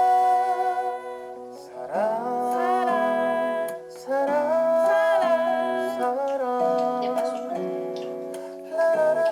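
Background music: a Korean song, a woman singing long held notes over plucked guitar.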